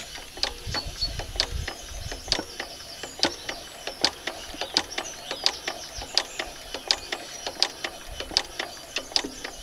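Steady clicking, about two or three clicks a second, from a 1956 Lister LD1 diesel engine being worked by hand to prime its freshly filled oil before a cold start.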